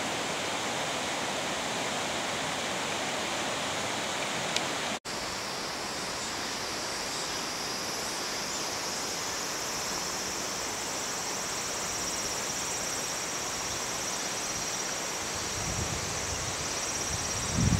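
Mountain stream rushing steadily over rocks in a gorge. The sound drops out briefly about five seconds in, a steady high hiss sits above the water after that, and a low rumble comes in near the end.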